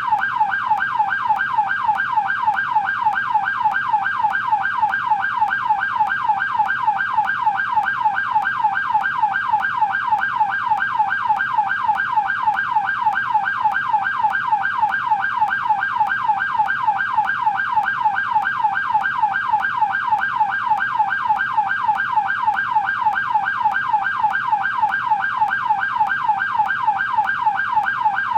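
American police car siren on the yelp tone. Its pitch sweeps rapidly and evenly up and down, several times a second, without a break.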